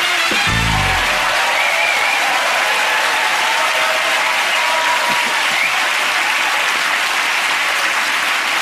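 Studio audience applauding steadily, with the last notes of the theme music fading out in the first second or so.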